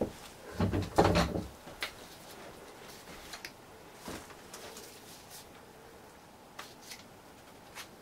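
Handling noise from gloved hands at plastic tubs and tools on a work surface: a short clatter of knocks about a second in, then a few scattered light clicks.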